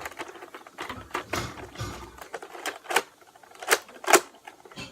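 Plastic toy blasters being handled: scraping and rustling, then a run of sharp plastic clicks in the second half.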